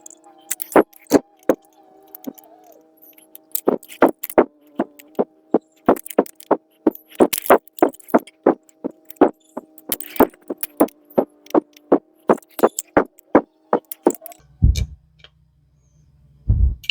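Rapid metallic clicks and clinks, about three a second, from small SU carburettor parts and hand tools being handled during reassembly, over a steady background hum that deepens near the end.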